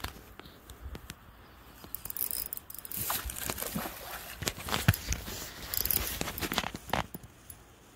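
A hooked trout splashing at the water's surface in irregular bursts, mixed with sharp knocks and clicks close by.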